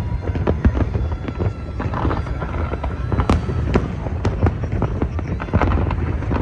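Large fireworks display: many irregular overlapping bangs, several a second, over a continuous low rumble.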